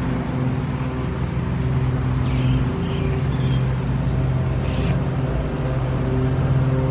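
Car engine and road noise heard inside the cabin while driving: a steady low hum, with a brief burst of noise about five seconds in.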